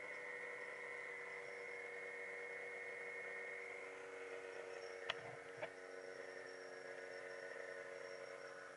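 Snowmobile engine running steadily at idle with a low hum, and two sharp clicks about half a second apart around five seconds in.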